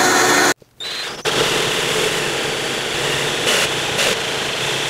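Cordless drill running a hole saw steadily through a floor-tile desktop, cutting a round hole, after a brief start-up about a second in.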